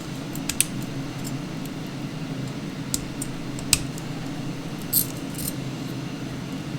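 A few short, sharp clicks and light clatter of computer parts and cables being handled on the mining rig, over a steady low hum.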